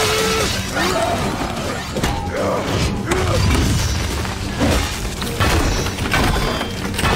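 Film fight sound effects over background music: a run of hard impacts, with wood cracking and smashing apart and dust-laden debris crashing.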